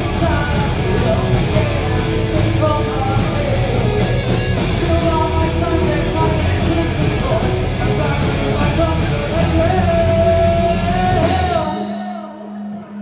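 Heavy metal band playing live: distorted electric guitars, bass and drums, with a held melodic line on top. The band stops together about a second and a half before the end, leaving one low note ringing on.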